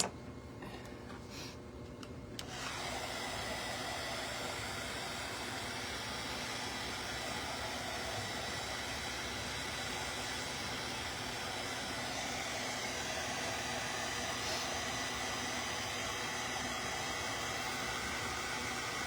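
A few light clicks, then an electric blower switches on about two and a half seconds in and runs steadily, a hair-dryer-like rush of air with a thin high whine.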